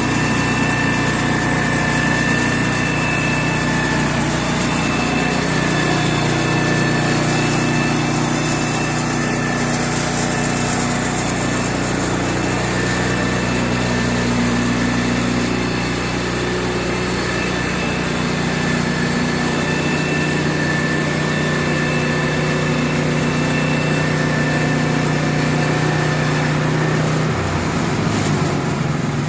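Sawmill engine running steadily while the mill saws, with steady high-pitched tones over the engine note. The engine note changes near the end.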